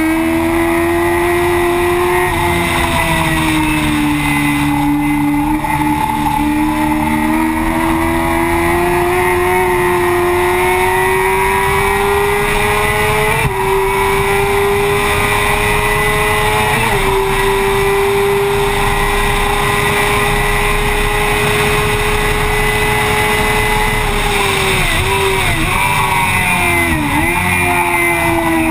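Yamaha FZ6's 600 cc inline-four running at high revs under hard acceleration, heard from the fuel tank. Its pitch climbs steadily and breaks briefly twice during upshifts; near the end it drops in a quick series of dips as the rider brakes and shifts down several gears.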